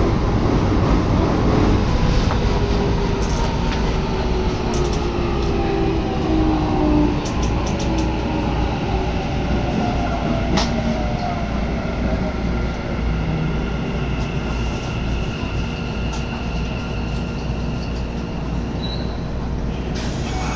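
Toei Asakusa Line subway train heard from inside the car as it slows into a station: a steady rumble with the motor whine falling in pitch over the first several seconds, and wheels clicking over rail joints. Thin high squealing comes in during the second half as it comes to a stop at the platform.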